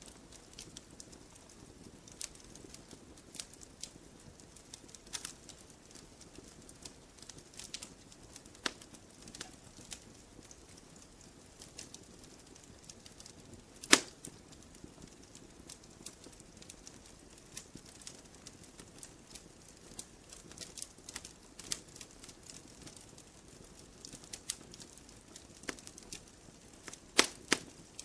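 Campfire logs burning: irregular sharp crackles and snaps over a faint steady background. The loudest pop comes about halfway through, and two more strong ones come close together near the end.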